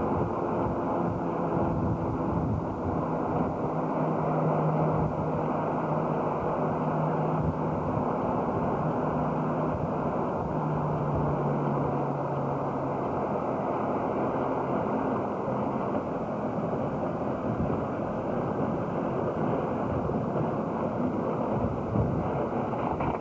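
Engine and road noise of a moving vehicle heard from inside the cab: a steady rumble, with an engine hum that holds a steady pitch through the first half and then fades into the general noise.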